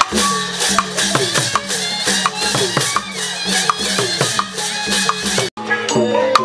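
Traditional Burmese music accompanying a marionette dance: a pitched melody over a fast, steady beat of sharp percussion strikes. The music breaks off for an instant about five and a half seconds in and carries on.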